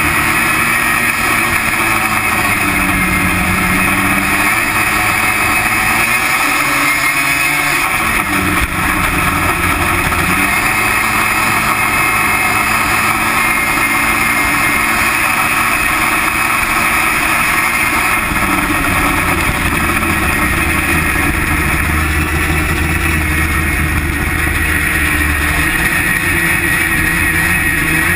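Racing snowmobile engine running at high revs, steady and loud, with its drive clutches and belt spinning.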